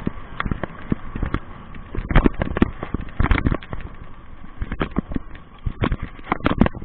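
Homemade 1500 W, 48 V electric mountain bike riding fast over a bumpy dirt trail: irregular knocks and rattles as the bike jolts over the ground, over a steady high whine.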